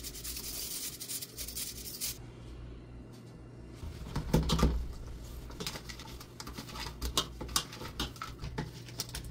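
Hilsa fish pieces being washed by hand: a short run of tap water at first, then scattered clicks, knocks and scrapes as the wet pieces are rubbed and moved about in a bowl.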